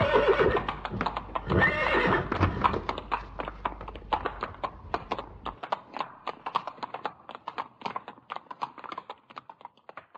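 A horse whinnying twice in the first couple of seconds, over a steady run of hoof clip-clops that goes on and fades out near the end.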